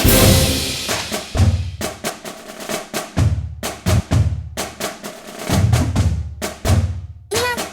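Music with a drum beat: repeated drum hits over low bass thumps, with a short pitched sound that bends up and down near the end.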